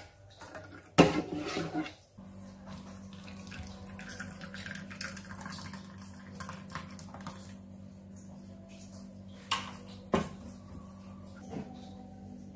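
A plastic ladle knocks and scrapes in a stainless steel pot. Then thick liquid mango pudding is poured from a small pot into a plastic container, over a steady low hum. A couple of sharp knocks come near the end.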